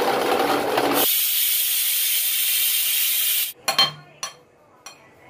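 Electric mixer grinder running loud, grinding soaked red chillies, ginger and garlic into a paste. About a second in it gives way abruptly to a steady high hiss that cuts off sharply, followed by a few clicks of a spoon against a glass.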